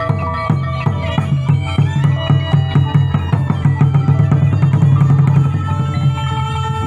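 Khmer pinpeat ensemble playing traditional music: held melodic lines over fast drumming. The drumming is densest and loudest a little past halfway, then thins out near the end.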